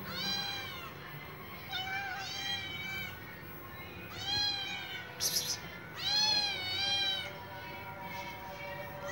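A cat meowing repeatedly: about six short, high-pitched meows, rising then falling in pitch, with a longer drawn-out meow a little past the middle. There is a brief hissy noise just before that long meow.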